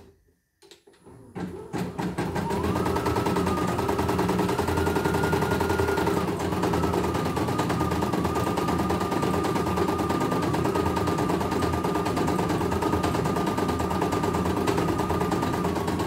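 CNY E900 computerized embroidery machine starting up about a second in and then stitching steadily on a test run: a rapid, even needle clatter over a motor hum, with a thin whine that steps up and down in pitch as the embroidery unit moves the hoop.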